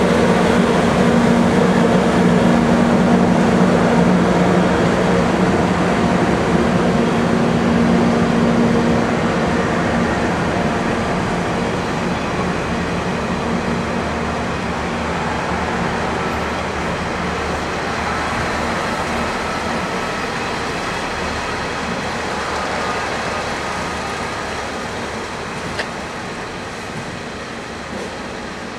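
Departing train of KiHa 47 diesel railcars and Kazekko excursion cars hauled by an EF64 electric locomotive, rolling past on the rails. The noise is steady, with a hum in the first few seconds, and fades slowly as the train moves away. There is one sharp click near the end.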